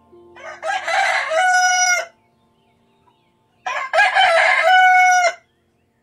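Rooster crowing twice, each crow a broken opening run into a long held final note, the second starting about a second and a half after the first ends.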